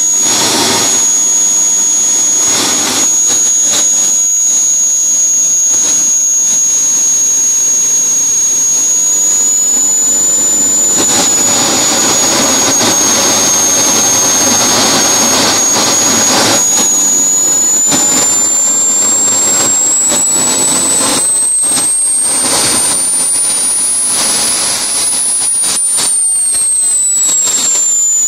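Small jet turbine engine running, a loud steady rush with a high whine; past the middle the whine climbs in pitch as the turbine spools up, then falls back near the end as it is eased off. A fuel problem keeps the turbine from spinning above 75,000 rpm.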